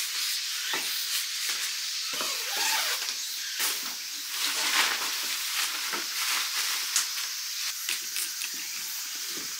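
Tent fabric rustling and camping gear being handled, with scattered sharp clicks and knocks from the tent fittings and a folding cot's frame, over a steady hiss.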